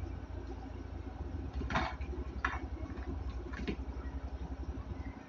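Crispy fried pork cheek crunching and crackling as it is eaten by hand, with three short crunches a little under two, at two and a half, and near four seconds in, over a steady low hum.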